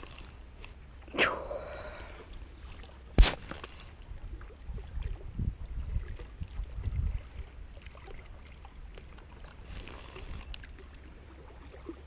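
Knocks and handling noises in a small fishing boat: a swish about a second in, one sharp knock about three seconds in, and a run of low thumps a few seconds later, over a steady low rumble.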